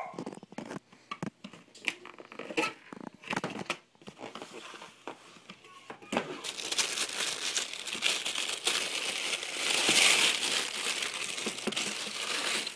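A cardboard shoebox being handled, with scattered knocks and rustles, then tissue paper crinkling and rustling continuously from about six seconds in, louder in the second half.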